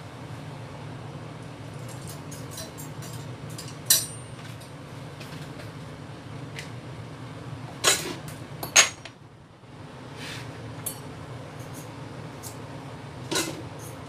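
Kitchen handling sounds: a few sharp clicks and knocks as a vegetable peeler and vegetables are handled at a plastic bowl on the counter, the loudest two coming close together about 8 and 9 seconds in. A steady low hum runs underneath.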